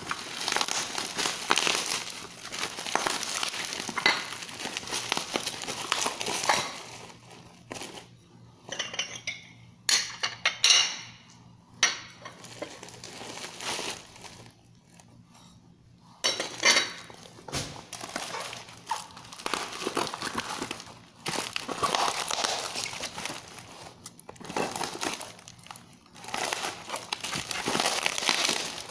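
Plastic packaging crinkling in bursts as it is pulled off newly unboxed ceramic plates, with the plates clinking against each other now and then. It falls quieter a few times, longest about a third of the way through and again around the middle.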